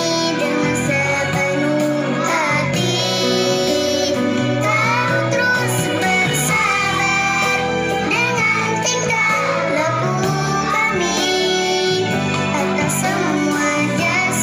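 A group of young children singing a song together over instrumental backing music.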